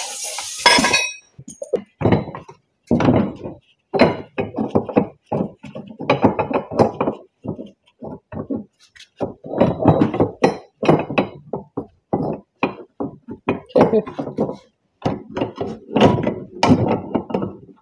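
Repeated, irregular hammer blows on a steel punch against a rusty axle-shaft yoke in a vise, driving out the bearing caps of a worn U-joint.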